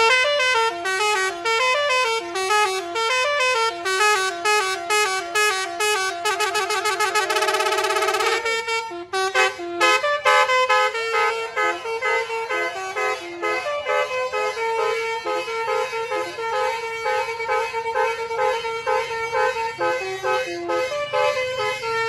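Basuri ("telolet") multi-tone bus horn played by the miniature bus's sound module: a melody of honking horn notes hopping up and down in pitch. About six and a half seconds in there is a quick run of rapid notes, then a brief break before the melody goes on.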